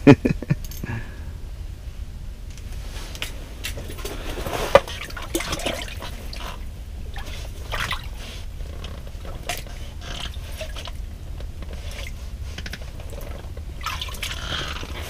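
Water splashing and dripping in an ice-fishing hole as a northern pike is pulled out by hand, with scattered small clicks of handling and one sharper knock about five seconds in.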